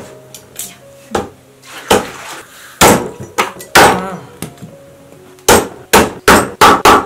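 Heavy cleaver chopping through a cured pig tail on a chopping board: sharp chops, a few spaced ones at first, then about six in quick succession near the end. Faint background music underneath.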